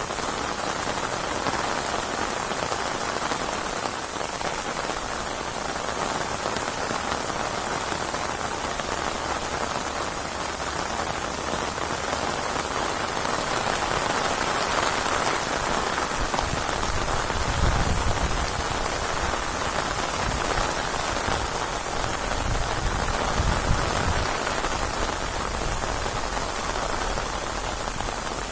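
Steady heavy rain falling on surfaces, an even hiss, with a few low rumbles about two-thirds of the way through.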